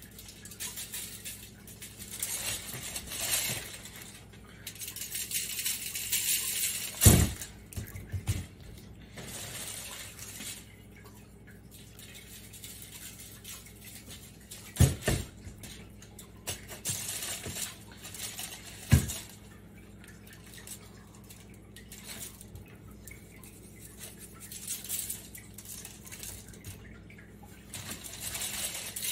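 Seasoning a rack of beef short ribs on aluminium foil: spice rub shaken from a shaker jar in spells of sprinkling, with foil crinkling as the meat is handled. Three sharp knocks come during it.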